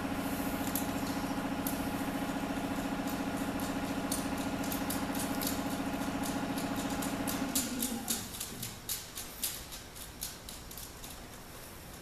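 A steady machine hum stops about eight seconds in. Light metallic clicks and ticks come from hand tools working a rocker arm adjusting nut, and they stand alone after the hum stops.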